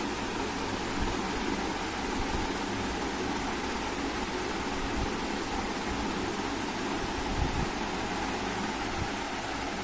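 Steady rushing background noise, with a few faint low bumps about a second in and again around seven and a half seconds in.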